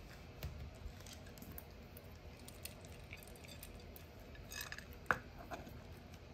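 Faint crunching and small clicks of a toy poodle chewing dry kibble fed from a hand, with a few light rattles of kibble; the loudest is a single sharp click about five seconds in.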